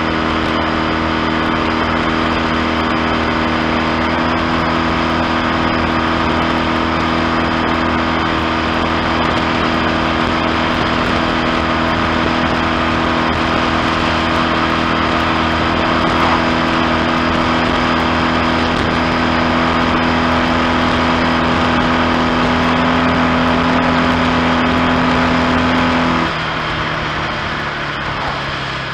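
1970 Triumph T100C's 500cc parallel-twin engine pulling steadily on the move, its note held at one pitch. Near the end the engine note drops suddenly and quietens.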